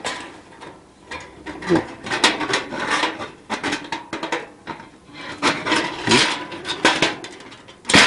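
Thin titanium plates and a wire rod of a Belmont TABI fire pit clinking, rattling and scraping against each other as they are handled and slotted together: an uneven run of light metallic clicks.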